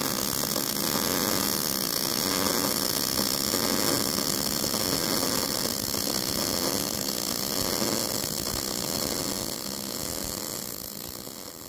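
MIG welding arc burning steadily, a continuous crackling buzz that fades out near the end.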